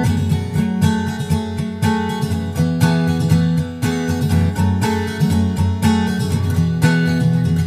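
Background music: acoustic guitar playing a steady, rhythmic strummed pattern.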